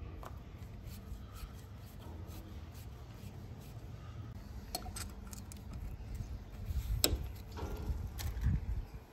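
Scattered small metallic clicks and scrapes of hand tools on a gas bayonet fitting, a screwdriver at the fitting and then an adjustable wrench fitted onto it, with one sharp click about seven seconds in. A low rumble runs underneath.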